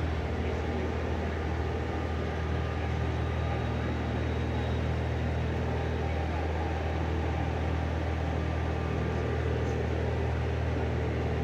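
A vehicle's engine idling nearby: a steady, unchanging low hum.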